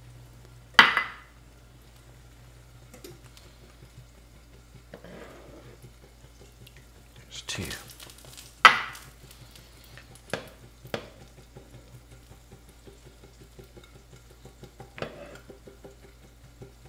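Metal slotted spoon and glass bowl clinking against each other and the pan while eggs are poached. There are two loud, ringing clinks, about a second in and just past the middle, then a few lighter taps, over a low steady hum.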